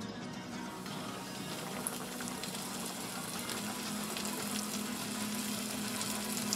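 Hot oil in a pot sizzling and bubbling around a battered chicken piece just put in to deep-fry. A steady hiss builds from about a second in.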